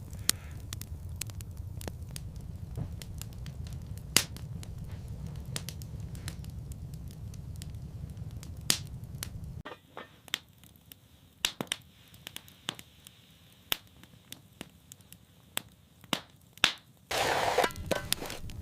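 Scattered sharp crackles and snaps over a low steady rumble. The rumble cuts off about halfway through, and a louder rush of noise begins near the end.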